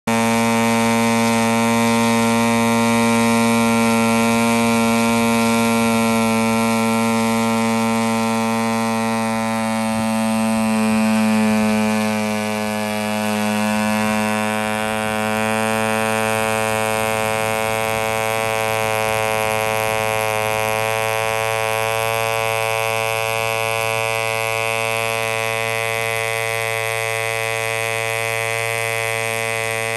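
Aurora K-650 6.5 cc model diesel engine running steadily at speed, turning an 11 x 7 nylon propeller, with a high, even buzz. The engine is on only its second run since new.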